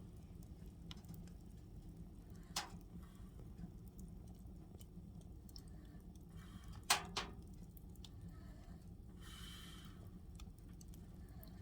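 A few sharp crackles from a fire over a steady low hum, the loudest about seven seconds in. About nine seconds in comes one hissing breath out from a sleeper.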